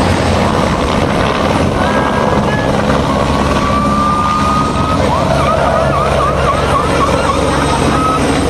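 Helicopter rotors and turbine engines running close by at lift-off: a steady low rotor thrum under a broad rushing noise. A thin high tone comes in about three seconds in and warbles quickly up and down near the end.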